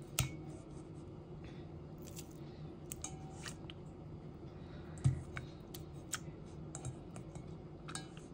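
Small wet clicks and taps of fingers and raw tuna steaks being pressed into soy sauce marinade in a stainless steel bowl, with one louder thump about five seconds in.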